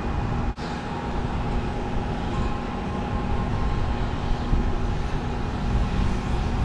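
Wind buffeting the microphone outdoors: a steady low rumble with no engine running yet, cutting out for an instant about half a second in.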